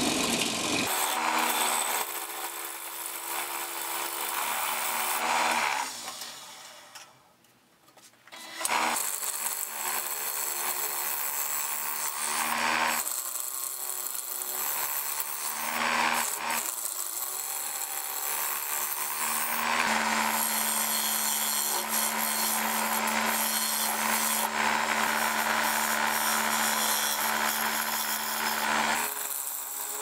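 Wood lathe spinning a basswood disc while a turning tool cuts across its face: a steady hiss and rasp of shavings peeling off over the lathe's hum. The sound fades almost to nothing for about two seconds around seven seconds in, then resumes.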